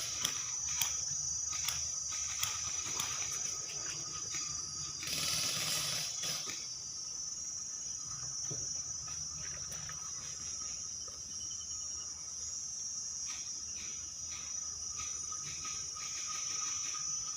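A steady, high-pitched chorus of insects buzzing, with scattered sharp clicks in the first few seconds and a brief rush of noise about five seconds in.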